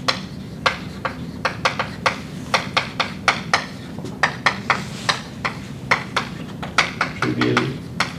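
Chalk writing on a blackboard: an irregular run of sharp taps and short scratches, about three or four a second, as symbols are written.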